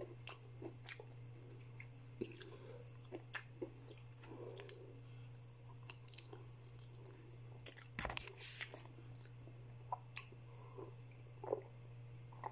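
A person chewing fried chicken close to the microphone, quietly, with wet mouth sounds, finger licking and scattered small clicks.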